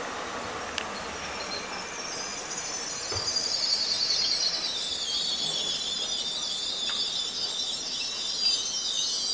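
Pesa Elf electric multiple unit pulling into the station, its brakes squealing high over the rumble of the train. The squeal sets in about two seconds in and slowly falls in pitch as the train slows.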